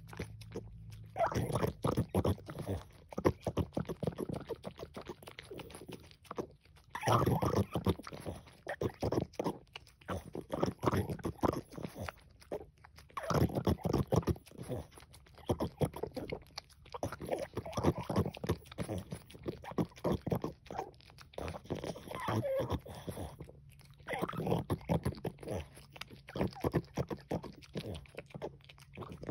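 French bulldog licking whipped cream out of a small plastic tray: quick wet licks and smacks in runs of several seconds, broken by a few brief pauses.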